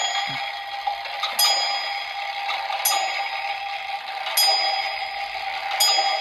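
Antique 1700s English tall clock movement ticking through an amplifier while on test after repair. Sharp metallic ticks come about every second and a half, each with a brief high ring, over a steady hiss and hum from the amplifier.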